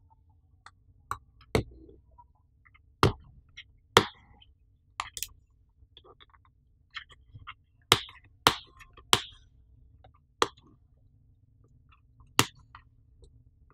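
Cardboard retail box handled by hand as it is turned over and its flap opened: a dozen or so sharp taps and clicks at irregular spacing, with a few light scrapes, the loudest clusters about four and eight seconds in.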